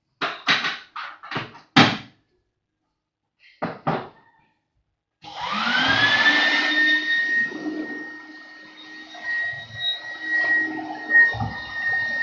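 A few short knocks and clatters, then about five seconds in a canister wet/dry vacuum cleaner is switched on. Its motor spins up with a rising whine and settles into a steady run.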